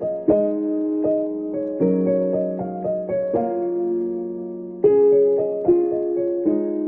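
Slow piano background music: soft chords and single melody notes struck every second or so, each ringing and fading before the next.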